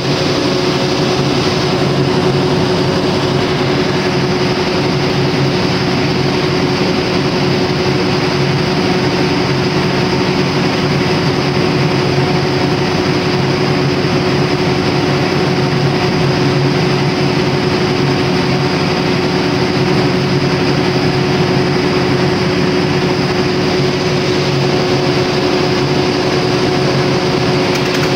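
Perkins 4006 750 kVA generator's six-cylinder diesel engine running steadily and loudly, with a constant hum over the engine noise. The engine is running with its injector timing set wrong.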